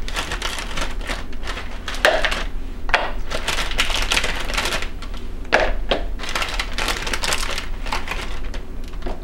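Crackers being handled by hand: a dense, irregular run of small clicks and crinkles, with a few louder clacks about 2, 3 and 5½ seconds in.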